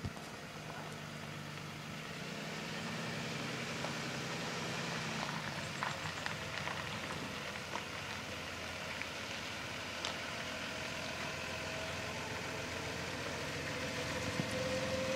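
School bus engine running as the bus approaches, growing gradually louder, with scattered light clicks and a faint whine that rises in pitch near the end.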